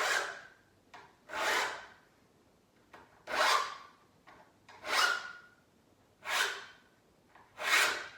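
Hand saw file rasping across saw teeth in slow, even push strokes, six of them about a second and a half apart, with a faint ring from the saw plate in some strokes.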